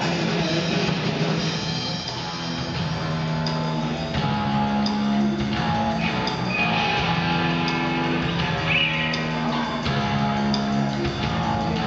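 Live rock band playing an instrumental break, with electric guitar, bass guitar and drum kit and no singing.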